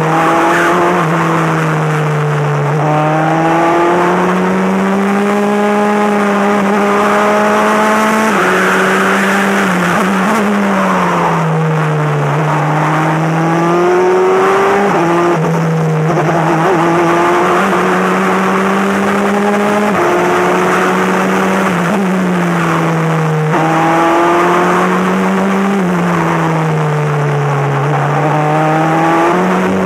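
Formula 4 race car engine at racing speed, heard on board: it revs up through the gears, its pitch climbing and dropping back at each upshift, then falls away under braking with quick blips on the downshifts, several times over.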